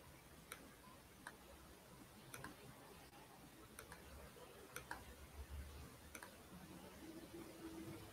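Near silence: room tone with faint, irregular clicks about once a second.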